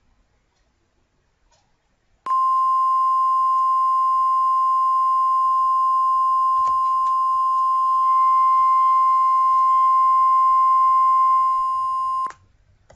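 Emergency alert attention tone: a single steady electronic beep held for about ten seconds, starting about two seconds in and cutting off suddenly.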